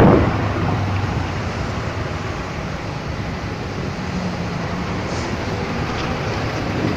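Steady engine and traffic noise in a slow-moving jam, heard from a motor scooter among cars, trucks and a bus, with a low hum under a rushing haze.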